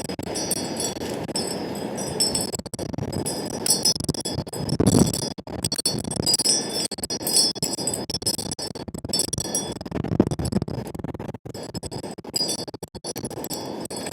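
Gusty wind blowing on the microphone, swelling in strong gusts about five and ten seconds in, while wind chimes tinkle with high ringing notes.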